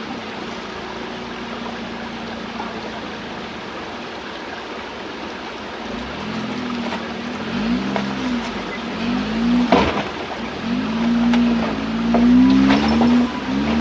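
Suzuki Jimny 4x4's engine climbing over creek-bed boulders: it holds a steady note, then from about six seconds in revs up and down again and again under throttle. A sharp knock sounds about ten seconds in, and the revving is loudest near the end.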